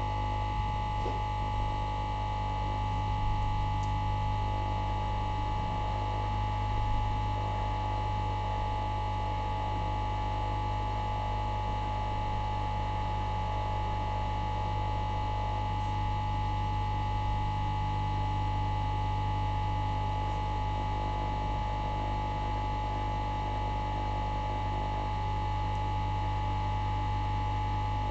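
Hot air rework station blowing steadily on a small circuit board to desolder a chip, a constant hum with a steady whine.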